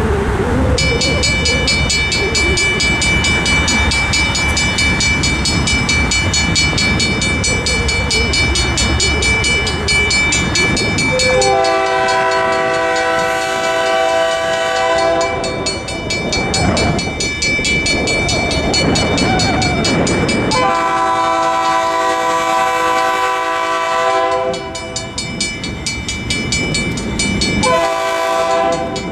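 A railroad crossing's WRRS mechanical bell starts ringing rapidly about a second in as the signals activate, with road traffic running underneath. Later a GE B39-8 freight locomotive's horn sounds two long blasts and then a short one near the end, the start of the standard grade-crossing warning.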